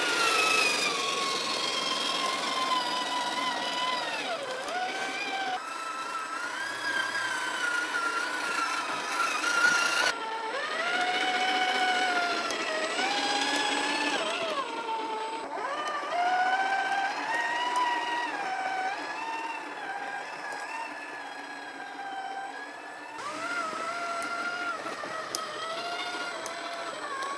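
Electric motor and gearbox of a 1/8-scale Traction Hobby KM5 G550 RC crawler whining as it crawls over rocks, the pitch rising and falling with the throttle. The sound jumps abruptly several times.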